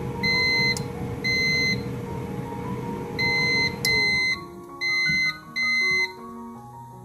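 Air fryer's touch control panel beeping as its buttons are pressed: six short, high beeps of about half a second each, spaced unevenly. Underneath, a steady rushing noise with a hum stops about four seconds in, and soft background music plays.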